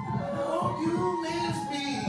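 Live music played on a keyboard, with a held pitched tone that slides in the middle of the phrase.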